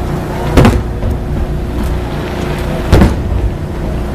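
Aerial fireworks shells bursting: two sharp booms, the first about half a second in and the second about three seconds in, over a steady low rumble.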